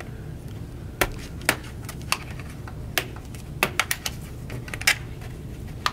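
Plastic snap clips of an Asus GL703GE laptop's bottom cover popping loose as a plastic pry tool works along the seam: a string of sharp, irregular clicks.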